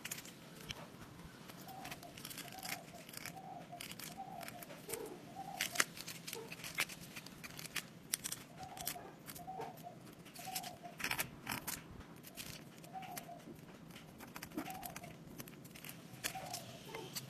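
Faint scattered clicks and ticks, with a faint animal call repeating in the background in short runs of a few calls each.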